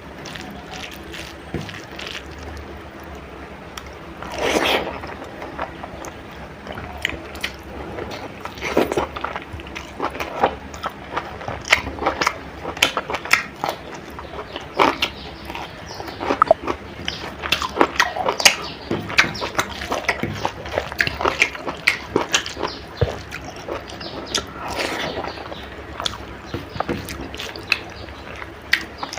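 Close-miked eating of spicy chicken curry with rice: irregular wet mouth clicks, smacks and chewing, with two longer, louder noisy stretches, about four and a half seconds in and near the end.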